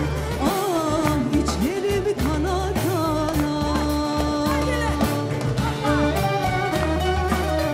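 Live Greek band with bouzoukis playing over a steady bass, with a singer's wavering melody carried over the top.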